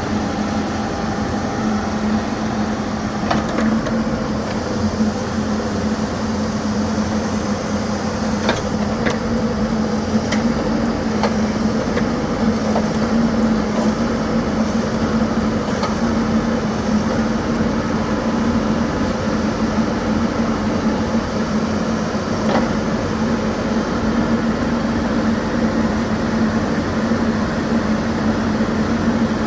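2013 Case 590 Super N loader backhoe's diesel engine running steadily, with a few faint clicks and knocks over it.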